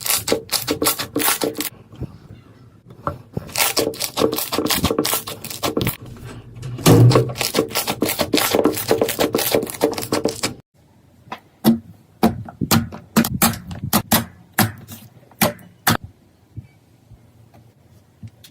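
Slime being squeezed and pressed by hand, giving dense crackling and popping clicks. The sound cuts off suddenly about ten and a half seconds in, then a sparser run of pops follows and stops about sixteen seconds in.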